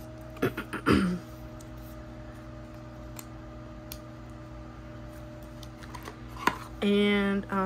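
Light clicks and handling noises from photo cards and plastic card sleeves being handled, over a faint steady hum. A short held voice-like tone comes near the end.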